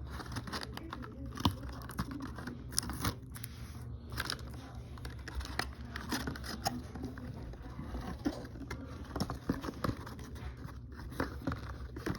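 Hands handling a plastic toy figure and its packaging: irregular crinkling, tapping and clicking.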